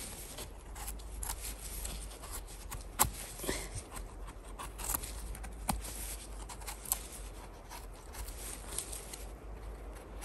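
Footsteps through forest undergrowth: scattered crackles and snaps of twigs and rustling of moss and leaves, over a low steady rumble of wind or handling on the microphone.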